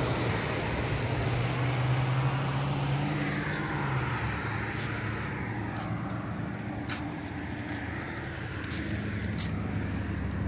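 Road traffic: a car driving past, its engine hum and tyre noise swelling and fading over several seconds.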